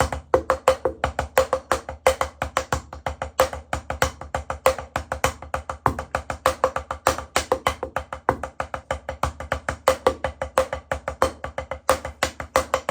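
Drumsticks playing paradiddle rudiments: a quick, even stream of strokes, some louder than others as accents.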